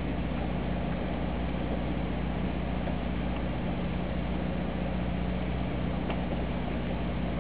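Steady low hum of a boat's machinery running evenly at idle.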